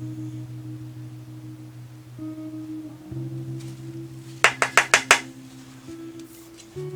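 Soft background music of sustained notes, shifting to new notes about three seconds in and again near the end. About four and a half seconds in comes a rapid run of five sharp clicks.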